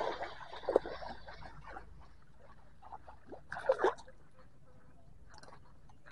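Water splashing and sloshing in irregular bursts, with two louder splashes, one near the start and one a little before the middle.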